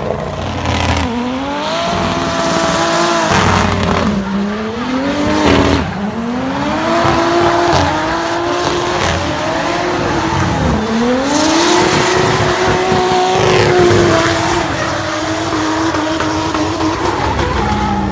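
Nissan Silvia S15's RB25 straight-six engine at high revs while drifting, its pitch climbing and dropping sharply about four times, with tyres squealing underneath.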